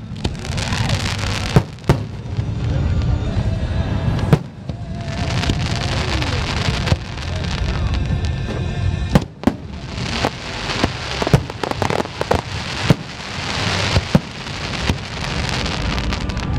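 Aerial fireworks bursting overhead: sharp bangs of exploding shells, a few at first and then many in quick succession from about ten seconds in, over a continuous crackle and rumble.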